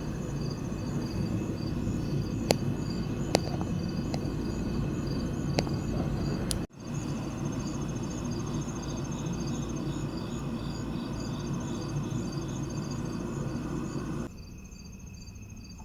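Crickets chirping in steady pulsed trains over a low, even background rumble, with a few sharp light clicks in the first half. Everything breaks off for an instant about halfway through, and the rumble drops away near the end while the chirping goes on.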